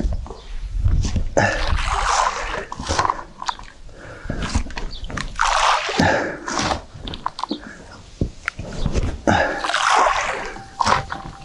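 Groundbait being tipped into the water from a boat to bait a carp swim, splashing in three main bursts about four seconds apart, with short clicks and knocks between.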